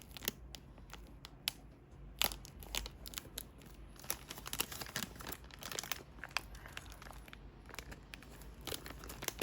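Dry crinkling and tearing as something papery or plastic is handled and torn by hand: a run of irregular sharp crackles, closely miked in a small room.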